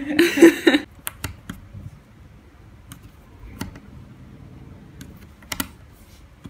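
A brief voice at the very start, then light clicks and taps of cardboard jigsaw puzzle pieces on a wooden table as pieces are picked up and pressed into place, a few scattered clicks spaced about a second apart.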